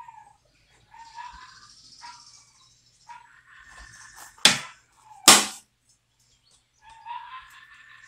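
Animal calls: short whining calls that rise and fall, repeated several times. About halfway through come two loud, sharp calls less than a second apart.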